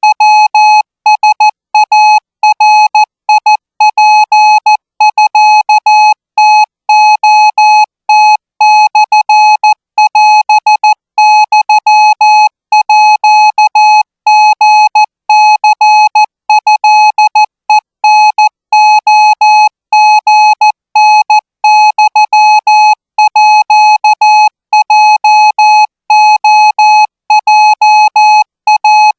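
Morse code practice tone: a single steady beep keyed on and off in short and long elements (dots and dashes), sending Thai Morse code at 20 words per minute.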